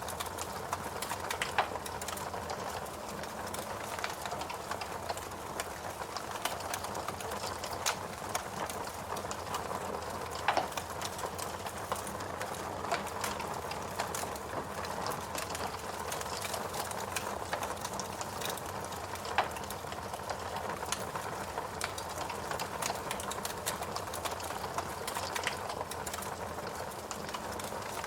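Wood fire burning in a fireplace, with a steady hiss and frequent irregular crackles and pops from the burning logs.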